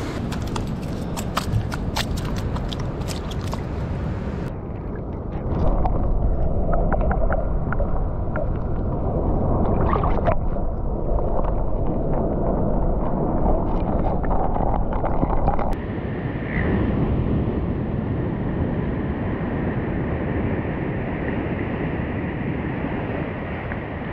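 Wind buffeting an action camera's microphone over surf washing on rocks, with sharp handling clicks in the first few seconds. For about ten seconds in the middle the sound turns muffled and rushing while the camera is under water, then the open wind and surf noise returns.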